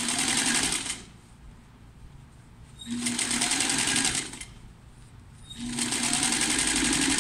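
Electric sewing machine stitching two layers of fabric together in three runs: a short one at the start, another about three seconds in, and a longer one from near the end on, with quiet pauses between. Each run opens with a brief low hum.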